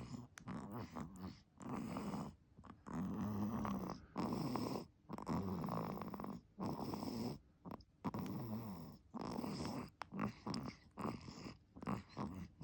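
Infant snoring in sleep: a steady run of soft, rasping breaths, each about a second long with a short pause between them.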